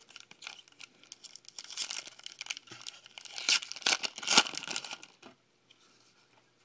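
A trading-card pack wrapper being torn open by hand and crinkling, a quick run of crackles that grows loudest a little past the middle and stops about a second before the end.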